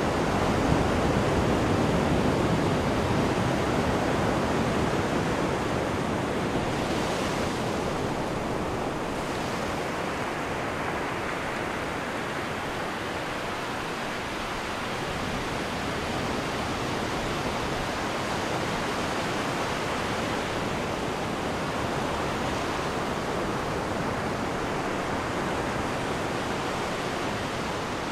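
Ocean surf: a continuous rush of breaking waves that slowly swells and eases, loudest at the start, softer midway, then building again.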